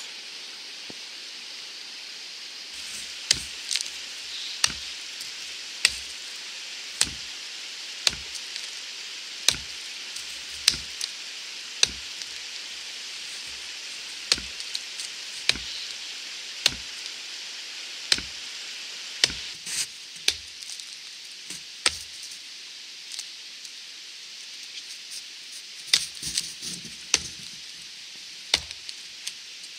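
Wetterlings Bushman axe chopping into the trunk of a standing dead tree: sharp blows about one a second, then a short pause and three more blows near the end.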